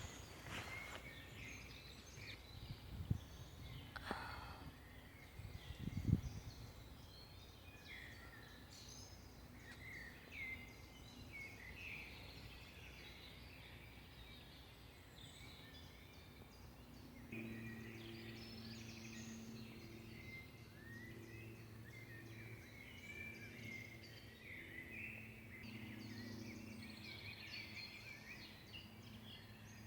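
Many small birds chirping, a dense scatter of short high calls. A couple of low thumps come early, and a steady low hum joins about halfway through.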